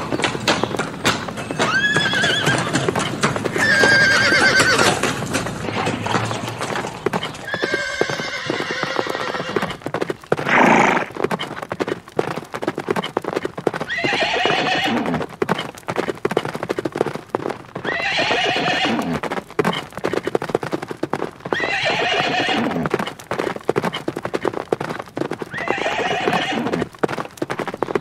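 Horses galloping, hoofbeats clattering throughout, with repeated neighs and whinnies. In the second half the same whinny comes back about every four seconds. There is one loud short burst near the middle.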